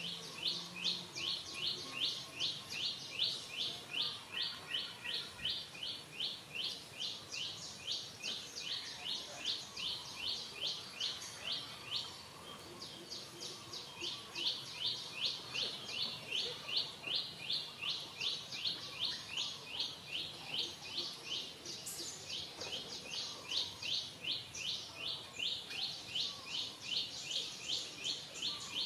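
Rapid, high-pitched chirping repeated about four times a second in a long even series, with a short pause about twelve seconds in before it starts again.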